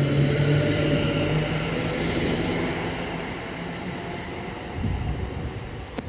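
Electric train running along the line at the platform, its rumble and low motor hum steadily fading as it draws away. A sharp click comes near the end.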